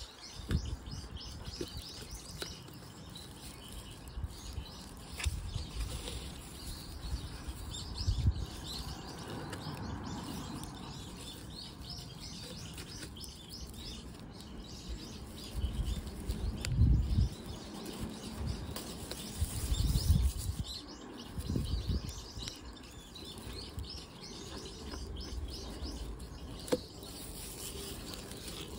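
Small birds chirping repeatedly in the background, with rustling and a few dull bumps from hands working a pine bonsai's roots and soil into a plastic pot close by; the bumps are the loudest sounds, a little past halfway and again a few seconds later.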